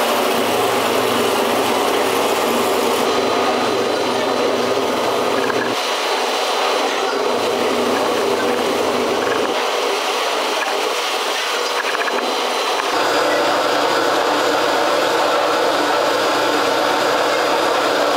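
Water from a hose rushing steadily into galvanized ice-block cans, filling them for freezing, over a steady machinery hum. The sound shifts abruptly a few times.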